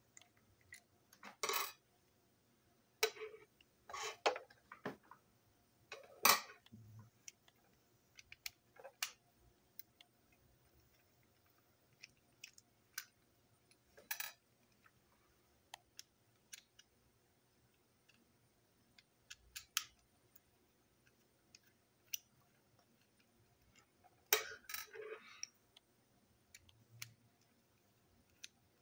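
Plastic clicks and scrapes of a small toy diesel locomotive being taken apart by hand, with small screws being worked out. The clicks come at irregular intervals with a few longer scraping bursts, the busiest stretch near the end.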